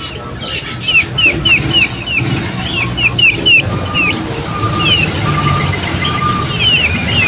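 Small songbirds chirping: runs of short, hooked chirps repeating about three a second, with four short, even whistled notes in the middle, over a steady low rumble.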